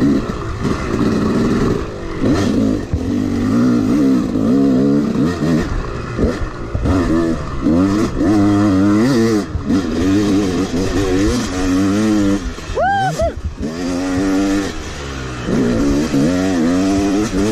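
Dirt bike engine at hard throttle, its pitch climbing and dropping over and over as the rider opens it up, shifts and rolls off around the track.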